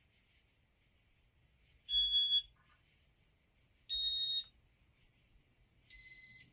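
Three electronic beeps from a Casablanca Inteli-Touch fan control, each about half a second long and two seconds apart, each a little higher in pitch than the one before, acknowledging button presses on the W-32 wall control.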